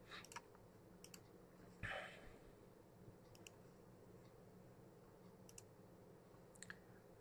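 Near silence with a few faint computer mouse clicks spread through it, and a short breath about two seconds in.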